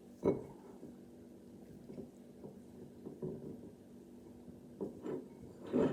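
A few soft, short taps and rustles of a broken squishy toy's crushed foam filling being handled, over a steady low hum.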